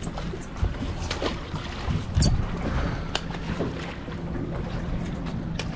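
Dungeness crabs tossed overboard, splashing into the sea several times, the loudest about two seconds in, over a steady low hum from the idling outboard engine and wind on the microphone.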